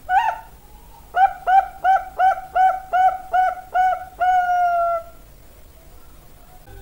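Bangkok-type zebra dove (perkutut) cooing. One short rising note comes first, then about a second later a quick run of eight short, clipped coos at about three a second, ending in one long, slightly falling note.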